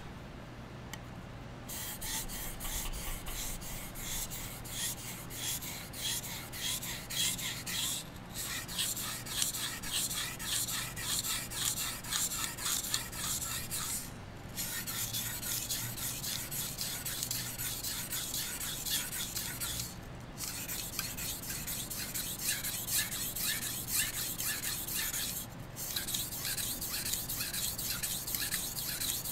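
Steel chef's knife blade scraped back and forth across a wetted whetstone in quick, steady rasping strokes: the edge being sharpened. The strokes start about two seconds in and pause briefly four times.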